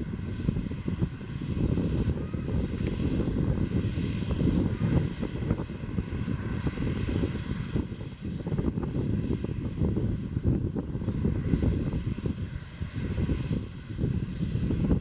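Boeing 737 jet taxiing: its turbofan engines give a steady low rumble with a faint whine above it.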